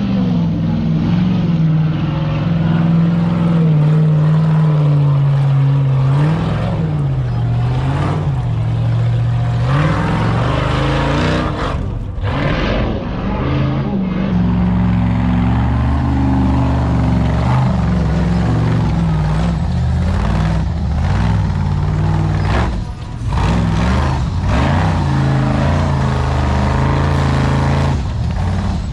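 Off-road race buggy engines running hard and revving as the cars climb a rocky hill, the engine pitch rising and falling again and again, with brief dips about twelve and twenty-three seconds in.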